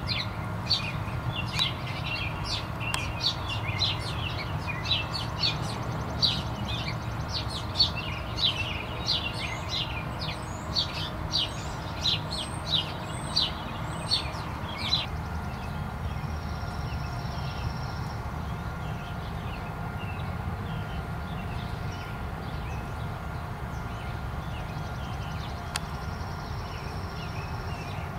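A small bird chirping over and over, short high chirps about one to two a second, which stop about halfway through. A steady low background rumble runs under it.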